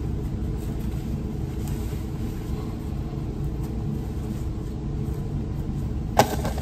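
A steady low hum of several fixed low tones, with one sharp click about six seconds in.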